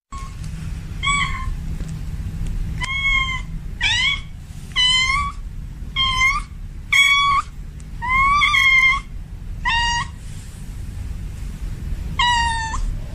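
Male cat in heat calling for a female with a string of about nine short meows, roughly a second apart with a longer pause before the last. A steady low rumble runs underneath.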